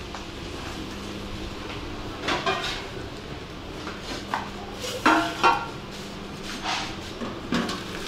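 Metal pots and lids clanking in a kitchen: a few sharp knocks and scrapes, the loudest about five seconds in, over a steady low hum.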